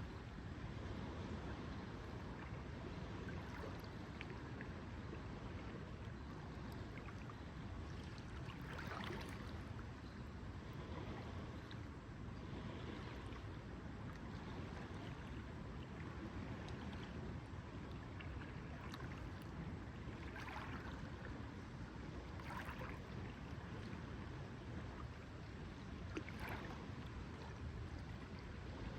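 Lakeside ambience: a steady low rumble of wind and water, with small waves lapping now and then.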